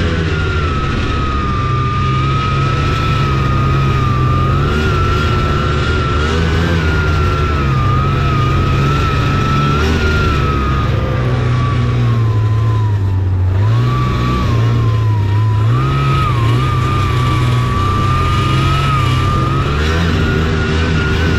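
Taiga Varyag 550 snowmobile's two-stroke twin running under way, with a high whine above the engine note. Both ease off in pitch about two-thirds of the way through, then climb again near the end as speed picks up.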